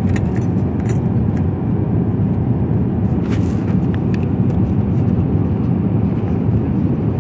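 Steady low drone of an airliner cabin in flight. A few light clinks of metal cutlery sound in the first second, and a paper cutlery sleeve rustles briefly about three and a half seconds in.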